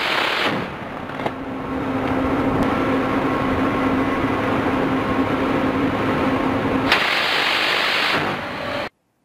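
Steady machinery hum on a warship's deck, a constant low tone over a wind-like rush of noise, with no gunfire bursts. It cuts off abruptly just before the end.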